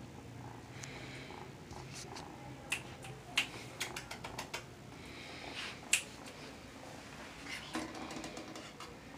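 A handful of short, sharp clicks and taps at irregular moments over quiet room noise, the clearest about three and a half and six seconds in.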